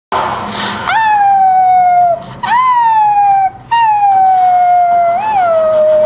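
A high, drawn-out whining howl: three long notes, each jumping up at the start and sagging slowly, with short breaks between them; the last one wavers up briefly near the end.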